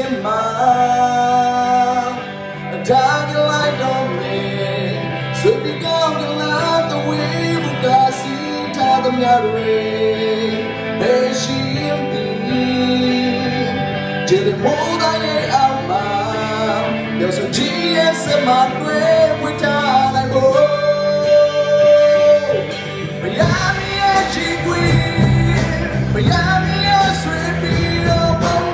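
A man singing into a microphone with a live band of electric bass and drums, amplified through a PA system. About 23 seconds in, the band's low end grows heavier.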